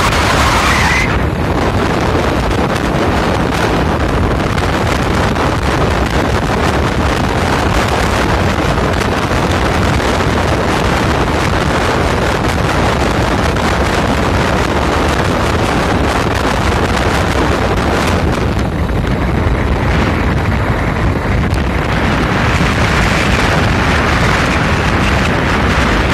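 Steady wind rush buffeting the microphone of a motorcycle riding at speed, with the vehicle's running noise underneath.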